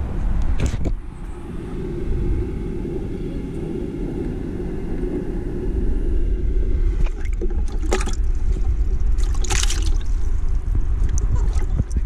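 A steady low rumble; in the second half, several short splashes and sloshes of water in a bucket as a hand reaches in to grab an Atlantic bumper baitfish.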